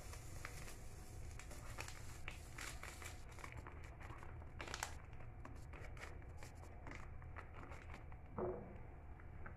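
Paper sachet of vanilla sugar crinkling faintly as it is shaken and squeezed empty over a mixing bowl, in scattered small crackles with a louder one about halfway through.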